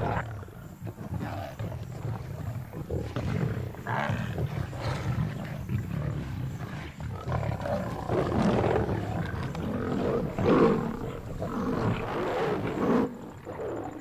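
A pride of lions growling and roaring over a buffalo kill as they feed. The sound is louder in the second half and drops off suddenly about a second before the end.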